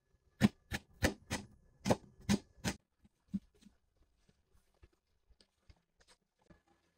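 A quick run of about eight sharp knocks or clicks in the first three seconds, then a few fainter scattered ticks.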